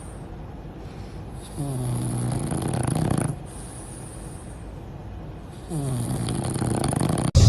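A sleeping pet snoring: two long snores about four seconds apart, each lasting under two seconds and starting with a slight drop in pitch.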